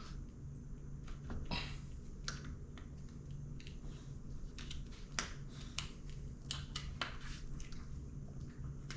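Scattered light clicks and taps from tools and small parts being handled while an electric scooter's charging port is unscrewed and worked loose, over a steady low hum.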